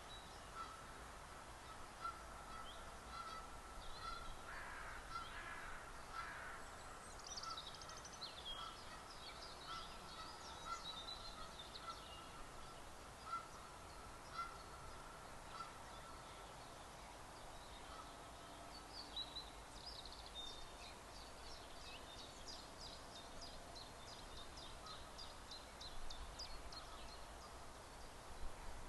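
Faint background bird chorus: Canada geese honking, with songbirds such as robin, chiffchaff and song thrush singing and a carrion crow calling. A short note is repeated at an even pace through the first half, and high chirps and trills come and go.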